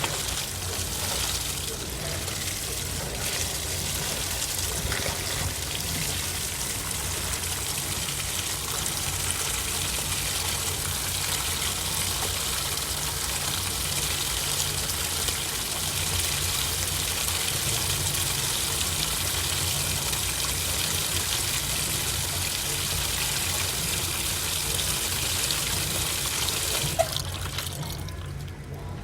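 Water rushing into the drum of an AQUA MCW-C70A coin-operated 7 kg washing machine as it fills: a steady hiss of water under strong pressure, cutting off suddenly near the end.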